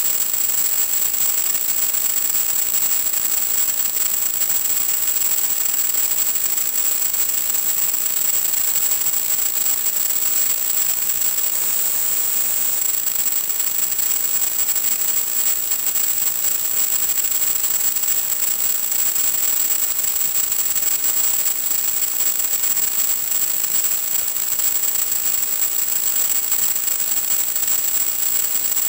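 Steady static hiss from an analog FPV video downlink's audio channel, with a thin, steady high-pitched whine running through it.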